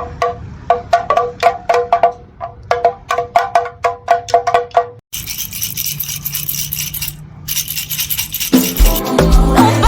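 Background music, an instrumental break in a funk/soul song: a quick run of repeated high pitched notes, then a stretch of hiss over a low held tone, with the full band coming back in near the end.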